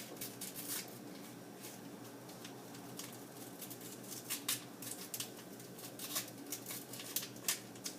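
Scattered clicks and crinkles of plastic packets being handled and cut open, irregular and fairly quiet throughout.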